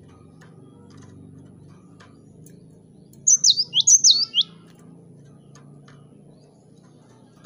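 Cinereous tit (gelatik batu) calling: a quick burst of six or seven sharp, high, down-slurred notes about three seconds in, over a faint low hum.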